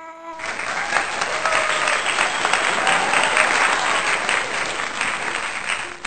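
Crowd applause: dense clapping that starts about half a second in and fades away near the end.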